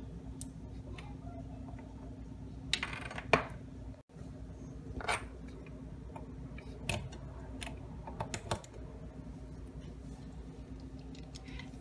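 Scattered light clicks and taps, loudest in a short cluster about three seconds in, over a steady low hum.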